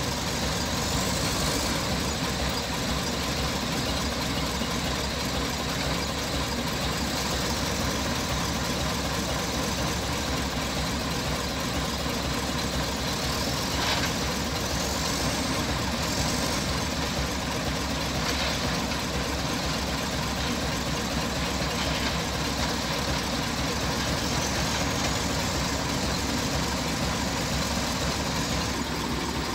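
Diesel engine of a wheel loader idling steadily.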